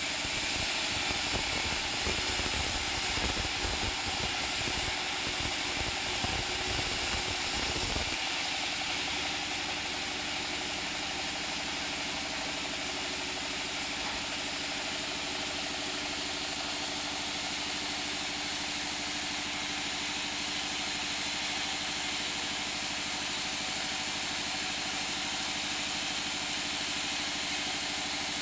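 Engine-driven sawmill band saw cutting through a mango-wood board, a rough, heavy sound under load for about eight seconds. The cut ends and the saw and its stationary engine run on unloaded with a steady drone.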